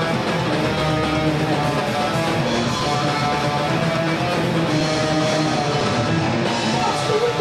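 Thrash metal band playing live: electric guitars and a drum kit, dense and steady throughout.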